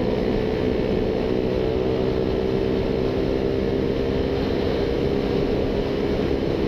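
Motorcycle engine running at a steady high cruising speed, its pitch holding level, under a constant rush of wind noise.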